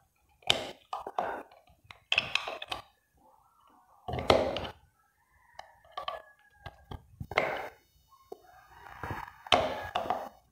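Metal tools knocking and scraping inside the bore of a cast-iron brake/clutch master cylinder as a lock ring is worked into its groove: a string of short, separate knocks and rasps with quiet gaps between them.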